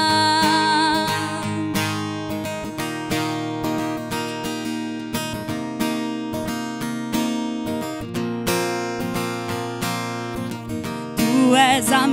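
Acoustic guitar strummed steadily in an instrumental break of a worship song. A woman's held sung note dies away in the first second or so, and she starts singing again near the end.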